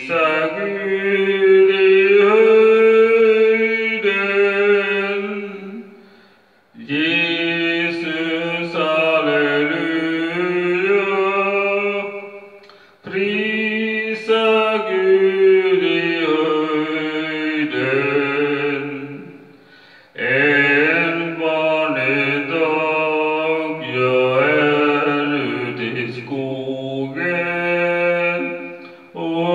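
A man singing a slow praise song unaccompanied, in long held phrases of about five to six seconds with short breaths between them.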